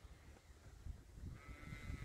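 A sheep bleats once, faintly, about one and a half seconds in, over a low rumble of wind on the microphone.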